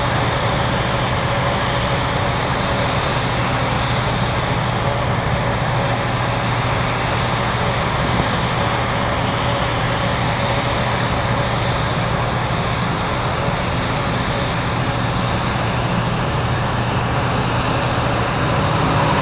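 Grain cart's conveyor and the engine driving it running steadily, loading grain into a covered hopper rail car; a constant hum that holds the same pitch throughout.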